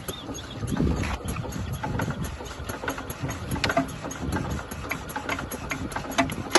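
1932 Deutz MAH 516 single-cylinder diesel engine idling, with a steady beat and regular sharp ticks.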